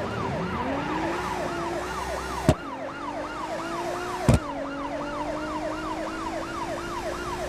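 Toy police car's electronic siren wailing in a fast, even rise-and-fall of about three cycles a second. Two sharp clicks come about two and a half and four and a half seconds in.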